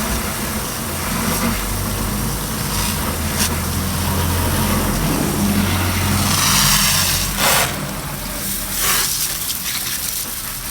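Water from a garden hose spray gun rinsing a car wheel and tyre: a steady hiss and splash that swells for a while in the second half, over a low steady hum.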